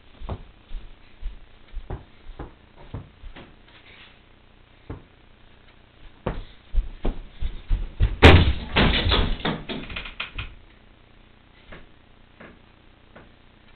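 Scattered thumps and knocks, then about eight seconds in a sharp bang followed by a couple of seconds of clatter as a jumper dunks on a mini basketball hoop hung over a closet door and the door bangs and swings open.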